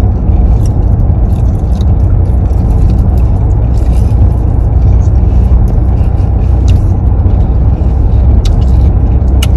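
Steady low road and engine rumble heard from inside a moving car's cabin, with a few faint clicks over it.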